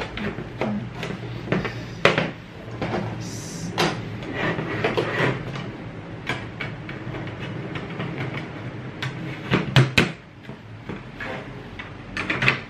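The hard plastic paper tray of a thermal printer being fitted together by hand: plastic parts knocking, scraping and clicking as they are handled and snapped into place. There are sharp snaps about two seconds in and twice close together near ten seconds.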